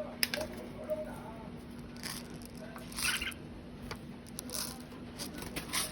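Red-whiskered bulbul pecking and crunching at its feed: scattered sharp taps with a few short scratchy, crunching bursts.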